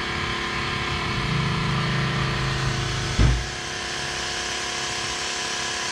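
A machine or motor running steadily with an even hum, slightly louder for a second or so in the middle, and a single knock about three seconds in.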